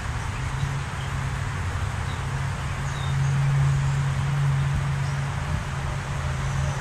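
Honeybees buzzing over an open hive of a drone-laying colony: a steady low hum that swells for a couple of seconds in the middle.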